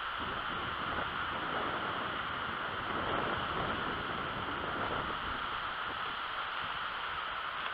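Wind rushing over the microphone with small waves lapping onto a sandy shore, a steady, even rush of noise.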